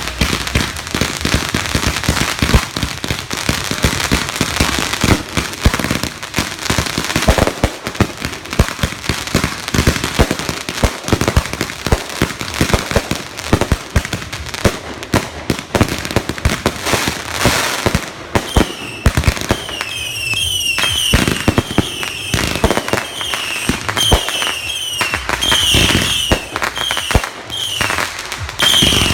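Consumer fireworks going off: a dense run of rapid crackling bangs, then, from about two-thirds of the way in, a string of short whistles that fall in pitch, about one a second, between scattered bangs.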